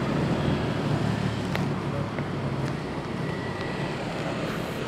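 Steady rumble of city street traffic, with a few faint clicks as clothing is patted down in a body search.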